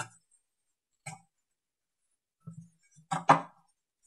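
Felt-tip marker scraping in short strokes on the plastic bottom of an upturned bucket, tracing around a PVC pipe coupler. A few separate strokes, the loudest a quick pair near the end.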